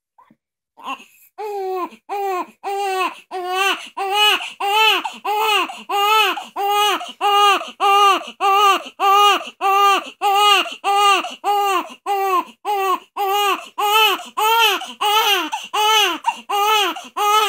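Newborn baby crying from hunger in a steady run of short wails, about two a second. Each wail rises and falls in pitch. The crying starts after a brief pause about a second in.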